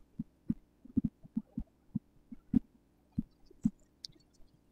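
Soft, irregular knocks and clicks, about a dozen, from handling a hydraulic disc brake caliper and the bleed syringe while mineral oil is pushed through the brake system during a bleed.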